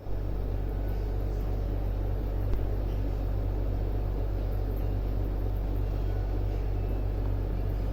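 A steady low rumble that does not change, with a single sharp click about two and a half seconds in.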